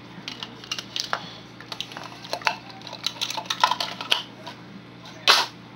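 Kitchen utensils and containers clattering: a run of light clicks and knocks, with one louder, brief clatter near the end.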